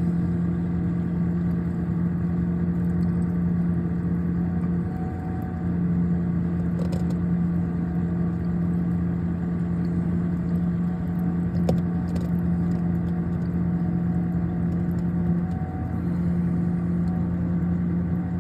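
Steady electric hum of a commercial refrigerator's compressor and fans running with the door open, the unit working to hold its temperature, broken by a few faint small clicks.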